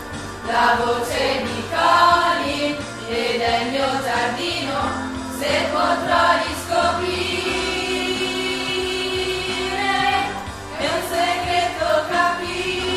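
A choir of voices singing a song together, holding a long note about seven seconds in.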